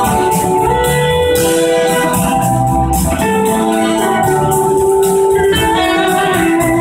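Full band playing live: electric guitars and a horn section over drums, with long held notes over a steady beat.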